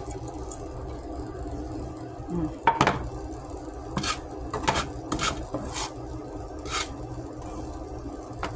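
A metal utensil tapping and clinking against a frying pan about seven times as chopped roast beef is put onto scrambled eggs, over a steady low background noise.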